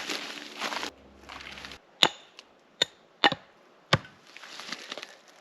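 Axe blows on pine wood: four sharp chops about two to four seconds in, after some rustling as the wood is handled.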